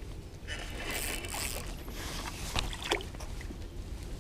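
Water lapping and sloshing against a plastic kayak hull, with a hissy splash about a second in and a couple of small knocks near three seconds, as a landing net is worked in the water to land a carp.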